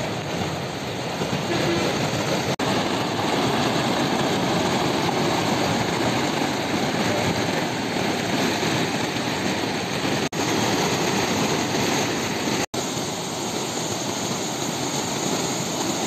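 River in heavy flood, the fast turbulent water rushing and churning in a steady noise, with a few split-second dropouts.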